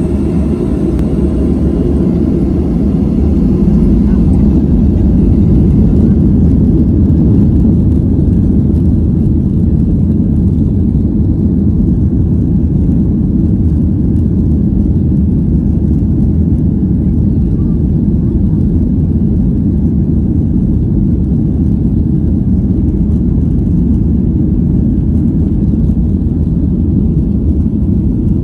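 Boeing 737 cabin noise during a slow taxi: the CFM56 jet engines at low thrust give a steady low drone and rumble, swelling slightly a few seconds in.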